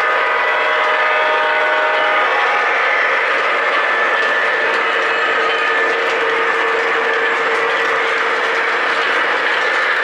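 O gauge model trains running on three-rail track: a steady whine of motors and gears over the rattle of wheels on the rails. A held chord-like tone, likely from a locomotive's sound system, fades out about two seconds in.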